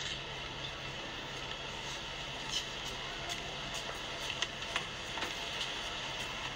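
Steady street background noise with a low hum, broken by a few light clicks between about two and five seconds in.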